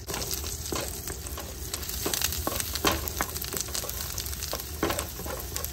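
Garlic and ginger frying in butter in a pan, a steady sizzle broken by irregular sharp pops and crackles.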